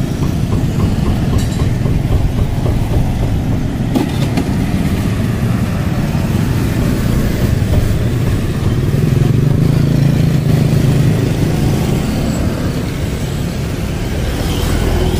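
Street traffic noise: a steady mix of motorbike and car engines, with a louder engine going by about nine to eleven seconds in and a single click about four seconds in.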